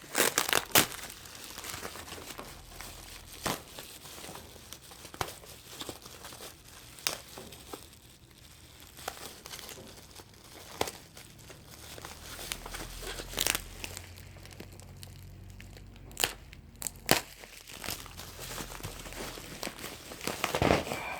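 Plastic bubble wrap crinkling as it is worked loose and pulled off by hand, with scattered sharp crackles.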